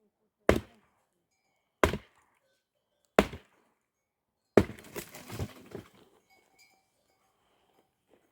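Firewood being chopped: four sharp chopping strikes about one and a half seconds apart. The last strike is followed by about a second of crackling and clatter, as of wood splitting and pieces falling.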